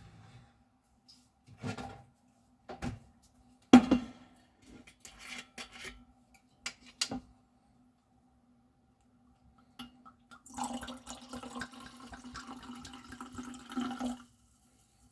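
Kitchen sounds: a handful of separate knocks and clinks of dishes, one louder knock about four seconds in, then water running for about four seconds near the end.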